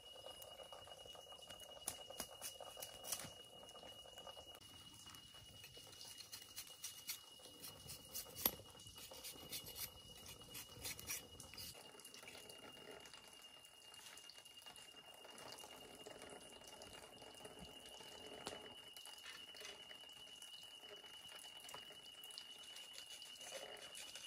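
Faint, steady high-pitched drone of night insects in the forest, with scattered light clicks and taps through the first half, the sharpest about eight seconds in.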